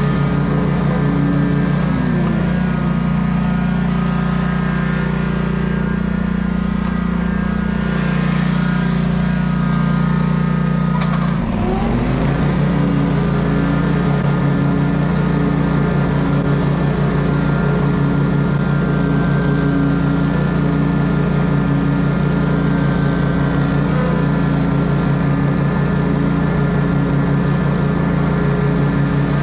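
Commercial walk-behind lawn mower engine running steadily. Its pitch dips briefly and recovers twice, about two and a half and eleven and a half seconds in.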